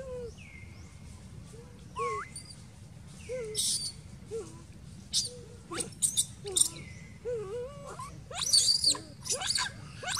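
Baby long-tailed macaque crying: a string of short, whimpering calls about once a second, breaking into shrill, loud squeals that come thicker near the end.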